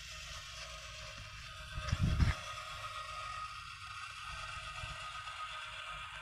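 Small DC gear motors of two wheeled hobby farm robots driving forward in step, a steady whirring whine. A brief low thump comes about two seconds in.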